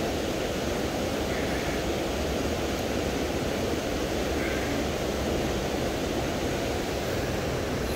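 River water flowing past close to the microphone: a steady, even rush with no single events.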